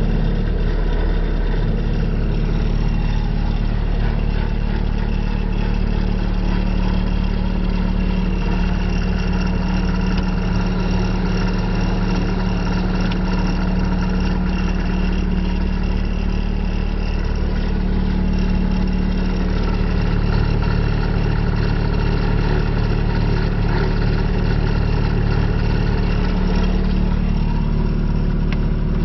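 Diesel engine of a Bobcat T770 track loader running steadily, with small shifts in engine speed along the way.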